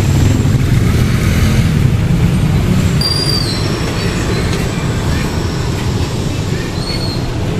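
Street traffic noise: a steady low rumble of vehicle and motorcycle engines close by, easing a little after a few seconds, with a few short high squeaks about three seconds in and again near the end.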